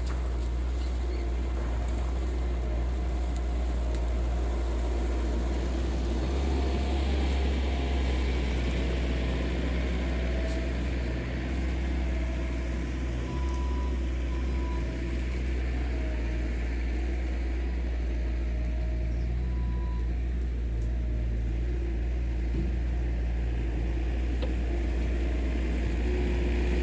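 Skid steer engine running steadily, a low, constant hum with no pauses.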